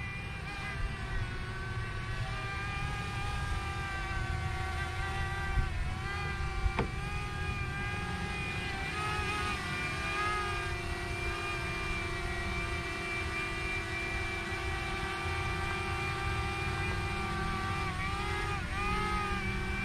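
DJI Mini quadcopter drone hovering, its propellers giving a steady whine that dips and wavers in pitch a few times as it adjusts.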